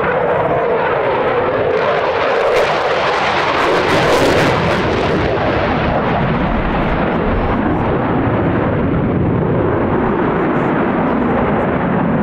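Dassault Rafale fighter jet flying a display overhead, its twin Snecma M88 engines making a steady rushing jet roar that crackles most harshly about two to five seconds in, then deepens in pitch.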